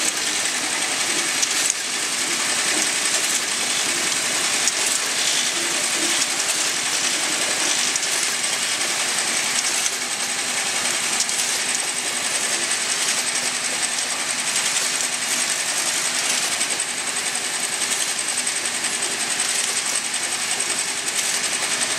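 Automatic vial filling and capping machine running steadily: a continuous mechanical clatter of many small ticks from the indexing mechanism and glass vials knocking together on the rotary table, over a thin high whine.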